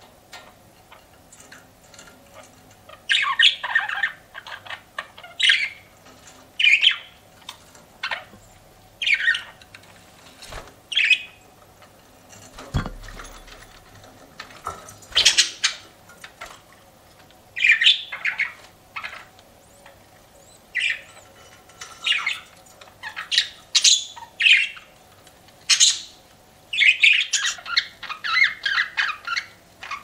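Pet budgerigars chirping in short bursts every second or two, with a busier run of chirping near the end.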